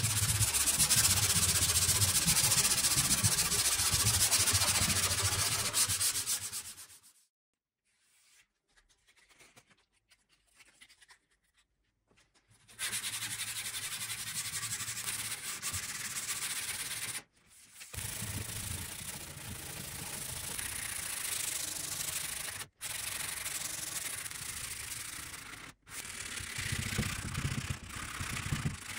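Sandpaper rubbed by hand over the worn finish of an old wooden dresser top, scratchy back-and-forth sanding. A louder stretch of sanding stops about seven seconds in. After a pause of several seconds the sanding resumes, steadier and quieter, with a few sudden brief breaks.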